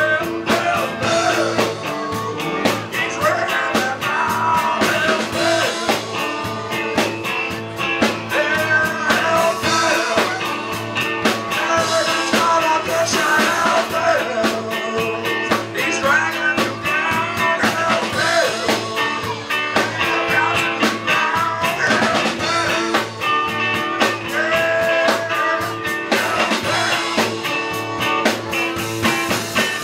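Live amplified rock band playing, with drums keeping a steady beat under guitar and a bowed fiddle.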